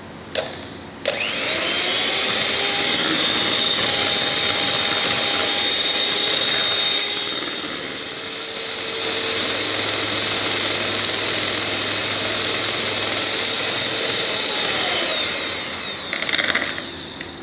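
Handheld electric mixer with twin wire beaters whisking pancake batter. It spins up about a second in, runs with a steady motor whine, and winds down near the end.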